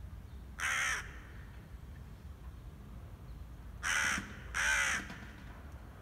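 Crow cawing three times: one harsh caw just under a second long near the start, then two more in quick succession about four seconds in.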